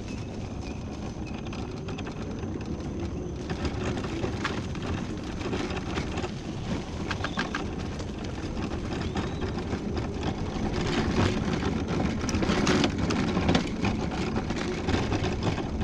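Battery-powered mobility scooter driving along a rough chip-seal road: a steady hum of motor and tyres that swells and eases a little with speed, with scattered short rattles over the bumps.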